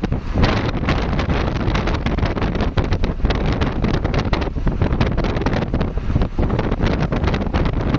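Heavy wind buffeting the microphone: a loud, continuous rush with rapid flutter, typical of filming from a moving vehicle.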